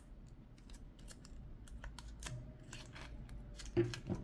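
Light clicks and taps of metal button-pin parts being turned and handled in the fingers, irregular throughout, with a couple of slightly louder taps near the end.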